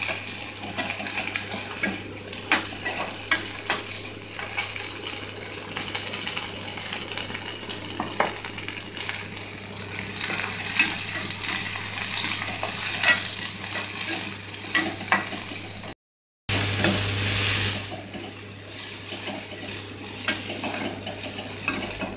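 Small onions and green chillies sizzling in hot oil in a kadai, stirred and flipped with a metal slotted spoon that clicks and scrapes against the pan. The sound cuts out for a moment about sixteen seconds in.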